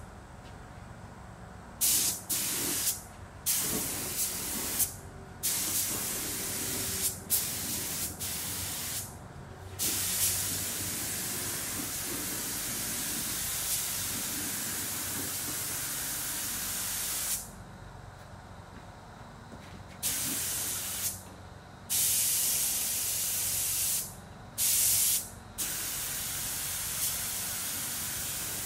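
Air spray gun spraying paint onto car panels, a steady hiss that starts and cuts off sharply each time the trigger is pulled and released: several short bursts in the first ten seconds, one long pass of about seven seconds, then a few more bursts. A faint steady low hum lies underneath.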